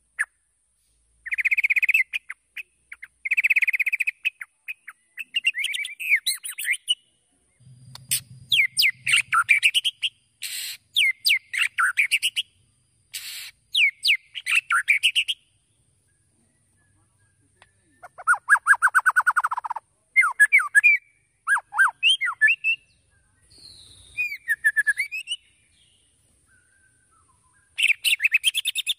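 White-rumped shama singing in full song: loud, varied phrases of quick whistled and buzzy notes and rapid trills, coming in bursts with short pauses between them.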